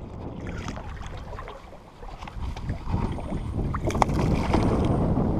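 Wind buffeting the action camera's microphone over water slapping the kayak's hull, growing louder from about two seconds in. Near four seconds in, a short splash as the hooked bass thrashes at the surface beside the kayak.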